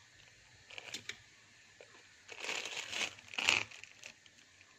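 Plastic bag crinkling as it is handled, in a short burst about a second in and a longer cluster of crinkles about three seconds in.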